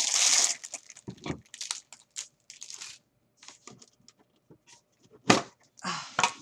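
Cellophane wrapping crinkling and tearing as it is pulled off a metal tin, then light handling clicks and rustles, with one sharp knock about five seconds in as the tin is opened.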